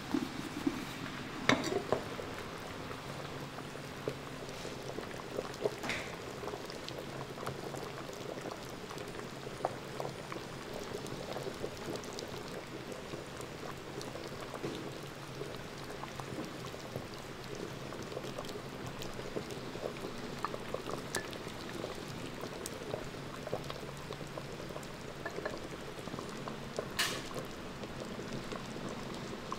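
A pot of goat soup bubbling at a steady rolling boil, with many small pops. There are a few sharp clinks from the pot and ladle, near the start and again near the end.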